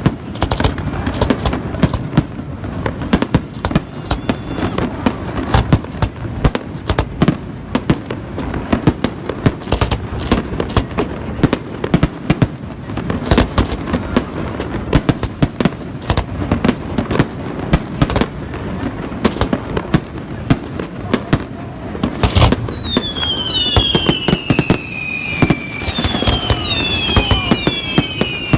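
Fireworks display: a dense, continuous barrage of sharp bangs and crackles. About three-quarters of the way through, a series of high falling whistles joins in.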